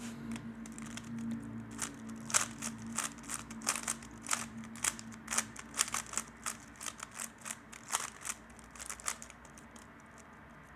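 Plastic 3x3 Rubik's cube being turned quickly during a speedsolve, its layers making an irregular run of sharp clicks, several a second, that stops about nine and a half seconds in.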